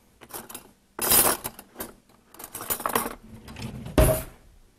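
Metal kitchenware clattering and clinking: utensils and a metal container knocked against stainless cookware in uneven rattles, with a sharp clank about four seconds in.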